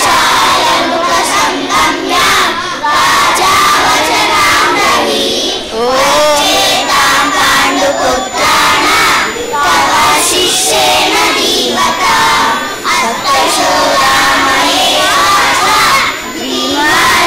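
A large group of young children chanting a Sanskrit shloka together in unison, many voices loud and overlapping in phrases with short breaks between them.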